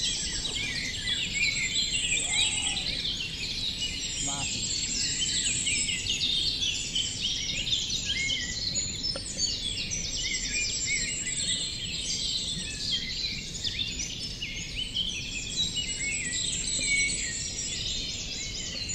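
Dense chorus of small songbirds chirping and twittering continuously, many short calls overlapping, over a low background hum of outdoor noise.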